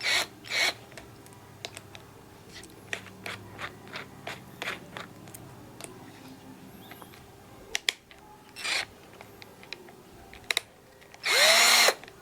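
Scattered light clicks and rubbing of a cordless drill and its bits being handled, a bit or extension pushed and snapped into place. A short loud cry near the end.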